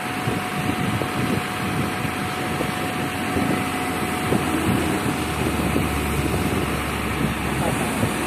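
Diesel engine of a crane truck running steadily at idle, driving the truck-mounted crane's hydraulics, with a thin steady whine over the engine.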